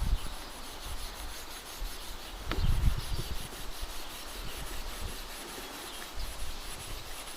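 Steel wool scrubbing a rusty steel saw blade in quick, even back-and-forth strokes to take off the rust. A single knock sounds about two and a half seconds in.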